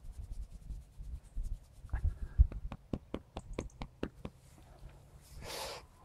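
Hand scratching and rubbing the long, coarse coat of a Highland cow, a quick run of scratchy clicks from about two seconds in, over low rumbling handling noise. A short breathy hiss near the end.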